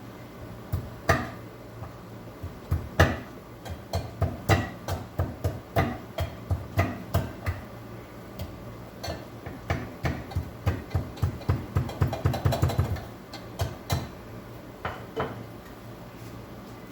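Kitchen utensils knocking repeatedly, irregular at first, then a quick run of sharp strikes about ten to thirteen seconds in before thinning out.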